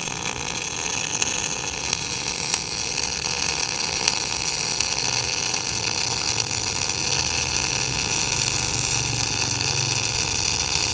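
Sanjoe NBC 500 MIG welder's arc running a continuous bead on 8 mm steel plate with 1.2 mm wire, at about 160 A and 21.5 V: a steady, even crackling hiss.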